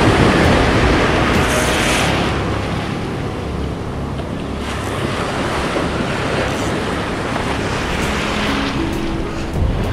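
Surf breaking and washing around in the shallows, with wind buffeting the microphone. The wash swells loudest at the start and again shortly before the end.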